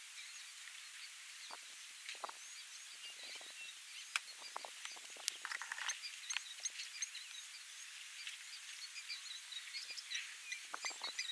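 Many small birds chirping and calling over a steady faint outdoor hiss, with scattered soft knocks and wet thuds.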